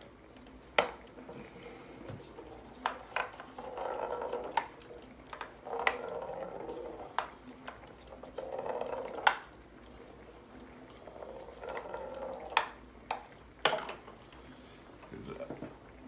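Sharp clicks and knocks on a small wooden tabletop soccer board as two conures step about and push a ball, with short stretches of rolling and scraping between the knocks. The loudest knocks come about a second in and about nine seconds in.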